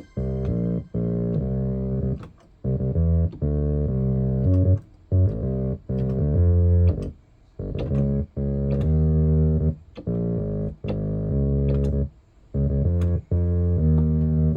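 Instrumental music with a heavy bass line. Sustained pitched notes play in short blocks, each broken off by a brief gap.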